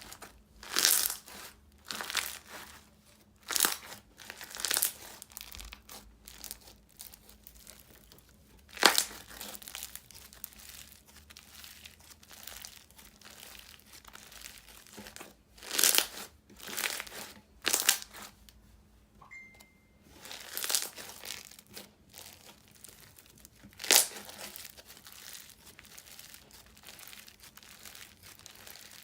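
Crunchy floam slime full of foam beads being squished and pressed by hand: irregular crackling crunches and pops, with a handful of louder squishes spread through.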